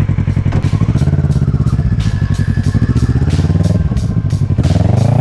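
Motorcycle engine running with a rapid, even pulsing beat, its pitch rising and wavering near the end as it is revved.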